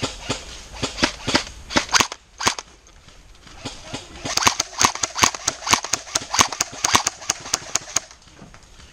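M4-style airsoft electric rifle firing: a scattering of single shots in the first two seconds, then a steady string of sharp shots about five a second from about four to eight seconds in.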